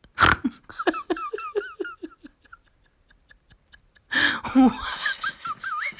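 Person laughing: a quick run of short giggles, then, after a brief pause, a second louder spell of laughter.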